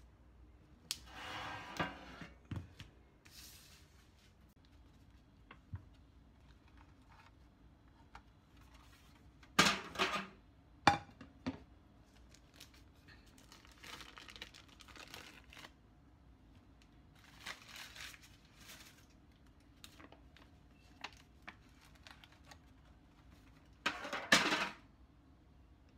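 Baking paper and a thin aluminium foil baking tray crinkling and rustling in several short bursts, with a few light clicks, as a baked loaf is pulled from the tray and handled. The loudest bursts come about ten seconds in and again near the end.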